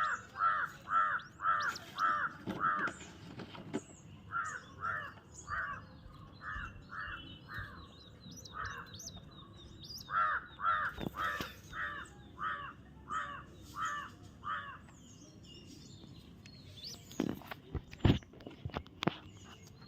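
A bird calling in runs of short, harsh, evenly spaced notes, about three a second, with brief pauses between the runs. A few knocks come near the end.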